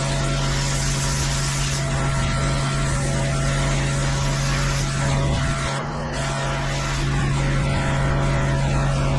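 Pressure washer running steadily: a constant engine drone under the hiss of the water jet on concrete.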